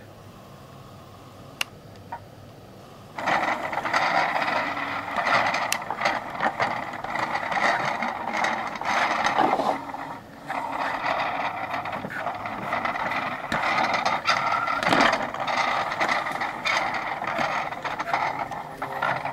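Faint room tone with a single click, then about three seconds in a loud, continuous rustling and scraping handling noise sets in, full of small crackles, with a brief dip near the middle.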